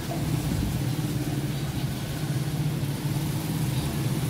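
A steady engine hum, like a motor idling, over an even hiss.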